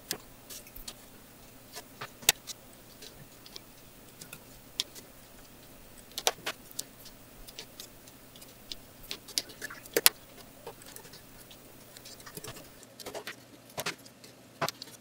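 Cardboard jigsaw puzzle pieces being picked up and pressed into place on a tabletop: irregular small taps and clicks, the sharpest ones about two, six and ten seconds in, with a cluster near the end.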